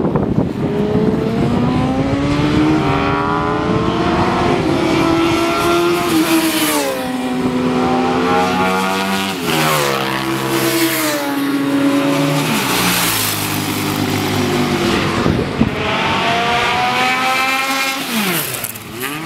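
Racing motorcycle engines running hard on track. Their pitch climbs under acceleration and drops in steps as the gears change. Near the end a bike passes close by with a quick fall in pitch.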